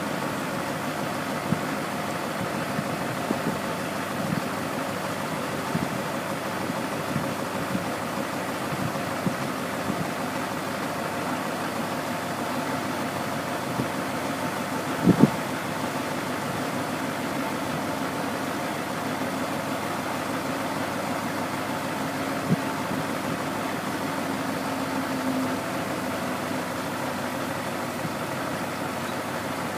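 Truck engine running steadily while a telescopic hydraulic hoist slowly raises a steel end-dump box. A sharp clunk about halfway through and a smaller one later stand out over the engine.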